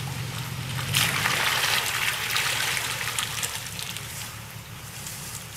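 Muddy water sloshing and splashing around the tyres of a 4x4 SUV wading slowly through a flooded mud hole, loudest about a second in and then tapering off. The engine's low running is heard underneath at the start, then fades.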